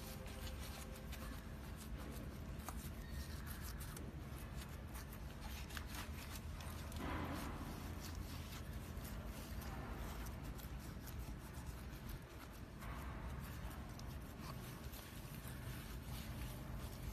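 Gloved hands pressing and smoothing wet castable refractory into formwork around anchor studs: faint rubbing and small scraping sounds, with scattered light clicks over a low steady background rumble.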